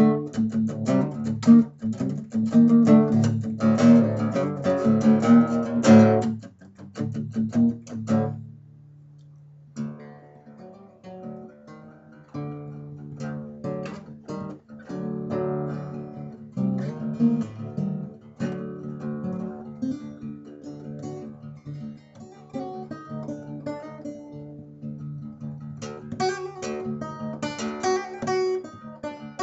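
Solo acoustic guitar: fast, dense strumming for the first several seconds, a brief pause about eight seconds in where the chord rings out, then quieter picked notes and lighter playing, with heavier strumming returning near the end.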